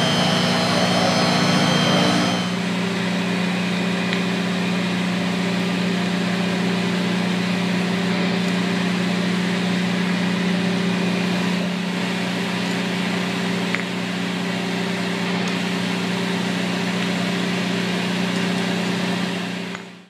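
Concrete floor grinder-polisher running with a high whine. About two seconds in, the sound changes to a steady, lower machine hum, which cuts off at the end.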